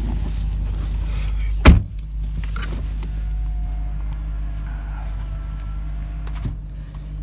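A car door slams shut with one loud thud about two seconds in, over the steady low idle of the Dodge Durango SRT 392's 6.4-litre HEMI V8.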